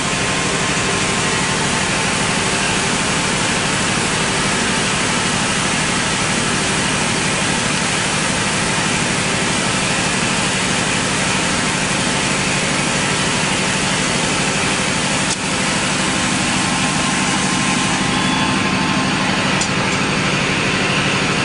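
EMCO Maier Emcoturn 325 II CNC lathe machining stainless bar: a steady spray of coolant against the enclosure window over the hum of the running machine, with a brief click about fifteen seconds in.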